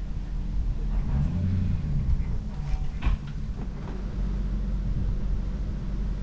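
An engine running steadily with a low rumble, and a single sharp knock about three seconds in.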